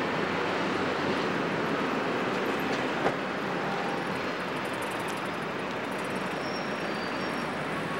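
Steady street traffic noise, with one sharp knock about three seconds in, which fits the taxi's car door being shut.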